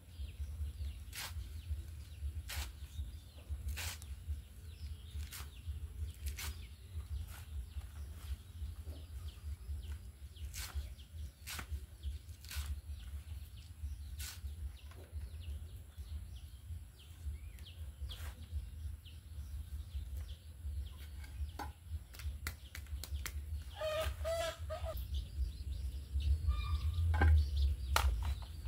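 Leaves being sliced against a boti, an upright curved blade fixed to a wooden base: a sharp snap with each cut, roughly once a second, over a steady low rumble. A chicken clucks briefly about 24 seconds in.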